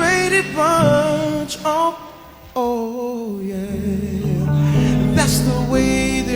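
A man singing a slow R&B ballad with ornamented, wavering runs over soft instrumental backing. The sound drops away briefly about two seconds in, then returns with long held notes, and a low bass comes in near the end.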